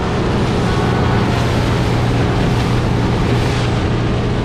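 Outboard motor of a small aluminium boat running steadily underway, with water rushing past the hull.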